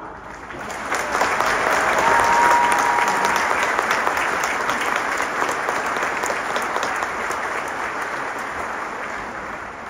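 A large concert-hall audience applauding, swelling over the first couple of seconds and then slowly fading. A brief steady tone rises above the clapping about two seconds in.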